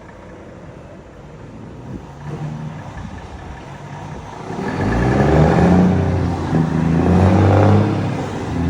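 Volvo FH truck engine running through an aftermarket 'estralador' performance exhaust with diffuser, a deep roar that grows much louder about halfway through as the truck drives closer under power, its pitch rising and dipping.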